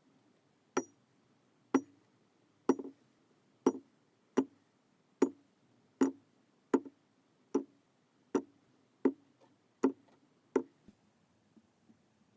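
Knife slicing through kinetic sand: about thirteen short, sharp taps, a little under one a second, as the blade cuts down and meets the surface beneath, then a few faint ones near the end.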